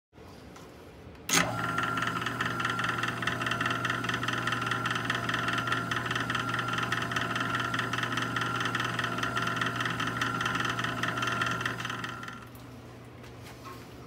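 Jet 1220 wood lathe starting suddenly about a second in, then running with a steady hum and a rapid, regular knocking, and dying away near the end. The knocking comes from a loose set screw inside the headstock, which the fix is to tighten.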